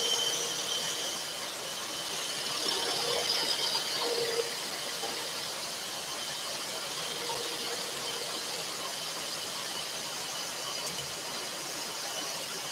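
Scroll saw running, its fine blade cutting a pierced pattern in a thin wooden panel: a steady high whine over an even hiss, a little louder a few seconds in.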